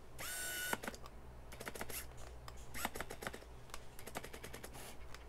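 Sigma 70-300mm f/4-5.6 APO DG Macro lens's autofocus motor on a Canon body whirring in one short burst near the start, a whine that rises and then holds, followed by a run of small clicks and ticks. The lens is hunting and fails to lock focus.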